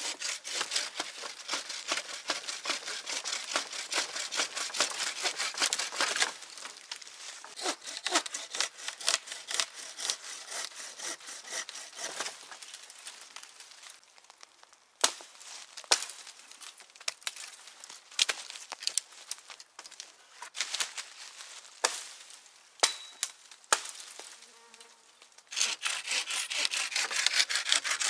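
Wood being cut with a hand saw: a long run of rapid rasping strokes, then scattered strokes and single sharp knocks, and another quick run of strokes near the end.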